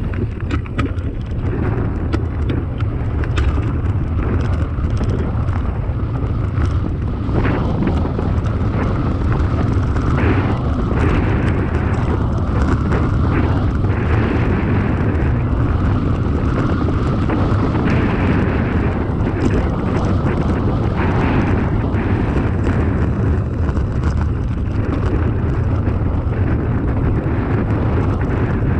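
Wind buffeting the microphone over the rumble of a mountain bike's knobby tyres rolling fast down a loose gravel road, with a constant clatter of stones and the bike rattling over bumps.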